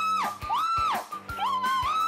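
Background music: a brass-like lead plays held notes that swoop up into each note and slide off at the end, over a steady drum beat.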